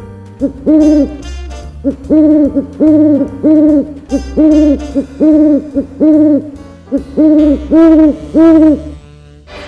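A dubbed-in music clip used as a sound effect: short pitched notes that rise and fall, about two a second in a steady pattern with a couple of brief breaks, over a low bass line.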